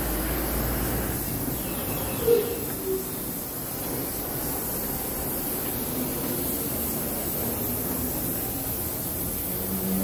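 Compressed-air spray gun hissing steadily as it sprays lacquer onto carved wood, with a brief squeak a little over two seconds in.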